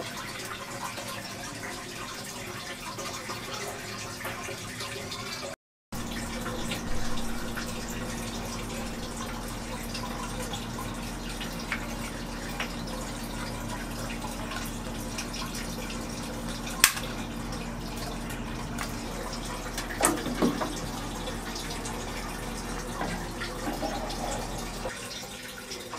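Water churning and splashing from an aquarium powerhead pump running in the tank. From about six seconds in, a steady low hum runs under it and stops near the end, with a couple of sharp knocks in between.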